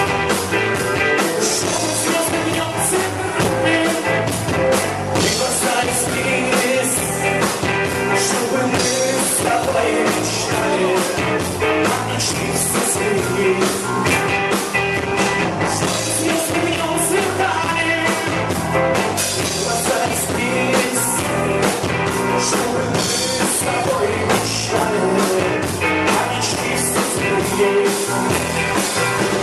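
A rock band playing, with a steady drum beat under the instruments.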